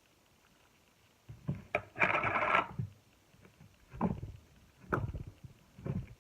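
Slime being squished: a few sharp wet clicks, a louder crackling squelch about two seconds in, then three shorter squelches about a second apart.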